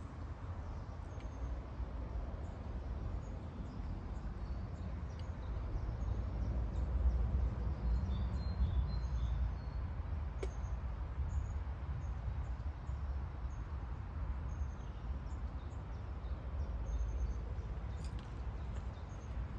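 Steady low rumble, with faint bird chirps scattered throughout and a single sharp click about ten seconds in.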